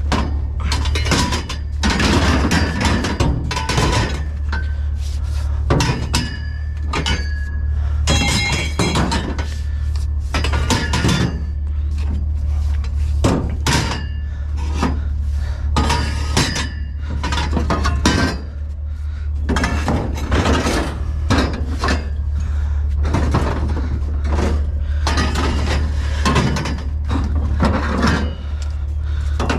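Scrap being shifted and dropped during reorganizing: a long run of clanks, knocks and bangs, several leaving a short metallic ring. A steady low hum runs underneath.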